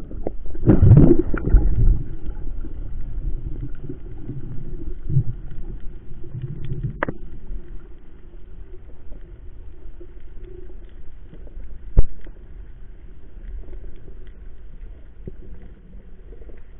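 Muffled underwater sound of a free dive, heard through a camera's waterproof housing. A loud rush of water comes in the first two seconds as the diver goes under. After that there is a low steady hum with scattered faint clicks, and one sharp click about twelve seconds in.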